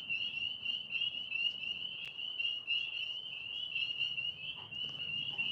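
A chorus of frogs calling, many high-pitched short notes overlapping and repeating rapidly in a steady din. A single faint click about two seconds in.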